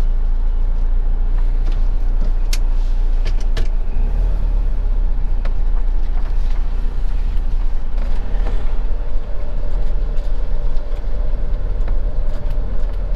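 Motorhome engine running steadily, heard from inside the cab as the vehicle moves off slowly, with a steady low rumble. A few sharp clicks or rattles come in the first few seconds.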